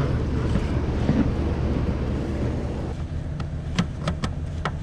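A few sharp plastic clicks and taps in the second half as the power seat's wiring-harness connector is handled and pushed home under the seat, over a steady low hum.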